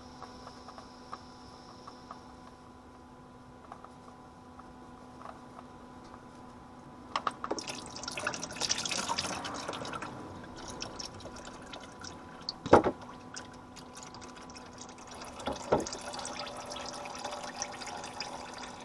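Engine oil pouring out into a drain pan, the flow starting suddenly about seven seconds in. A sharp clank comes a few seconds later, with a smaller one after it.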